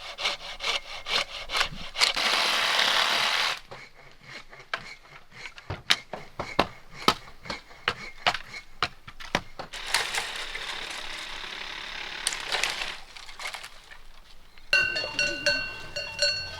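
Hand saw cutting wood in quick repeated strokes, mixed with sharp knocks and cracks of wood. Near the end, ringing livestock bells take over.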